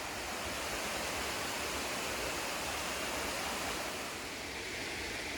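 Waterfall rushing steadily, a dense even hiss of falling water that eases slightly about four seconds in.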